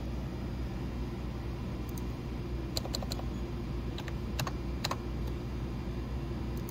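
Scattered clicks of a computer keyboard and mouse as a number is typed into a settings box: a cluster of quick clicks about three seconds in, then single keystrokes about half a second apart. A steady low hum runs underneath.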